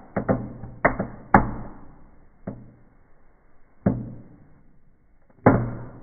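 Small firecrackers of a firework set off in a fireplace, bursting one after another. Four quick bangs come in the first second and a half, then the bursts thin out to single bangs about a second and a half apart, each with a short echoing tail. The last bang, near the end, is among the loudest.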